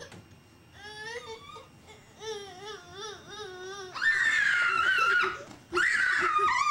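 A toddler's wavering high vocalizing, then two loud, high-pitched excited shrieks, the second falling in pitch.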